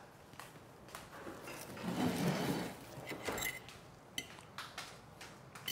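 Quiet kitchen clatter: dishes and utensils clinking and knocking on a counter, with several small sharp clicks in the second half.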